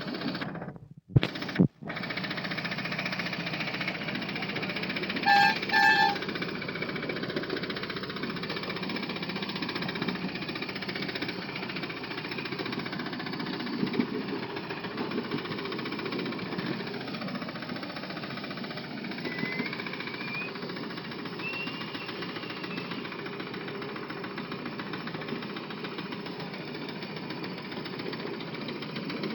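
Ride-on miniature train running along its track: a steady rattling clatter of wheels and drive. Two sharp knocks come about a second in, and two short horn toots about five seconds in.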